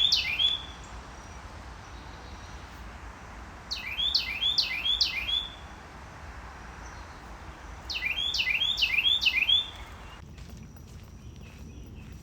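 A songbird singing three bouts of loud, repeated down-slurred whistled notes: a short burst right at the start, then about five notes a little under four seconds in, and another run of about five notes near eight seconds in.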